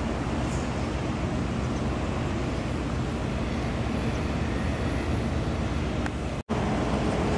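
Steady low rumble of harbour ambience with a faint machinery hum, broken by a momentary dropout about six and a half seconds in.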